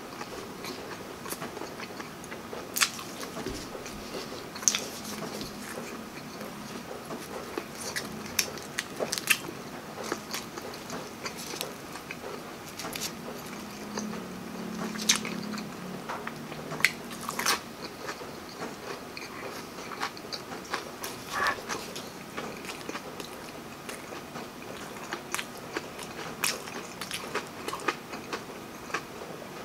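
Close-up eating sounds: a person chewing mouthfuls of rice and breaded fried fish fillet in creamy sauce, with frequent sharp wet mouth clicks and smacks and occasional crunches.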